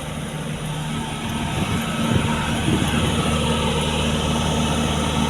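Motor vehicle engine running, heard as a steady low hum that sets in and grows a little louder about two seconds in.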